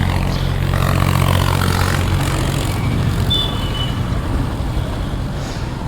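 Yamaha FZ-S motorcycle's single-cylinder engine running as the bike rides off: a steady engine hum for about two seconds, then mostly road and wind noise.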